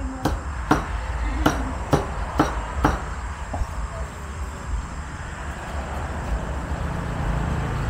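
Cleaver chopping on a board, sharp strikes about two a second, stopping about three seconds in; after that a steady background hum with a low rumble.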